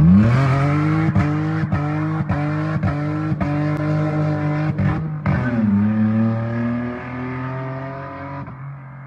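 BMW Z3 2.8i straight-six engine with its exhaust line cut, accelerating hard from a launch start. The revs hold high, then drop and climb again at a gear change about five and a half seconds in, and the sound fades over the last seconds as the car pulls away.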